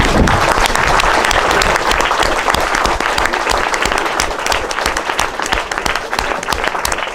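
Audience applauding: many hands clapping together, loudest at the start and easing off slightly over the seconds that follow.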